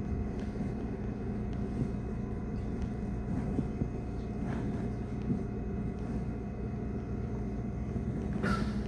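Steady rumble and hum inside a moving passenger train, with a short burst of hiss near the end.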